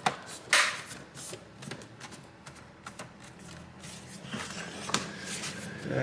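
Plastic bottom cover of an MSI GL75 Leopard laptop being pressed and worked onto the chassis: scattered clicks and taps of its clips and edges, the sharpest about half a second in. The cover is not yet fully seated.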